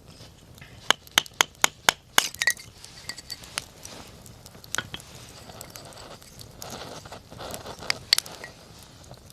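Dry firewood cracking: a quick run of five or six sharp cracks about a second in, then scattered smaller pops and two more near the end.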